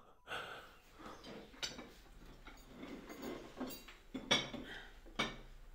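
Faint clinks and taps of cutlery, glasses and dishes at a meal table, with a few sharper clinks, the loudest about four seconds in.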